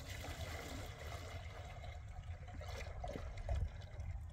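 Water pouring and splashing from a plastic jug, trailing off after about three seconds, with a thump shortly after.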